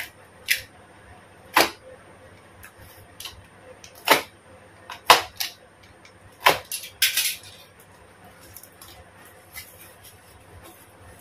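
A tape-wrapped cardboard parcel being slit open with a small knife: a series of short, sharp scrapes and rips with pauses between them, and one longer rip a little past halfway.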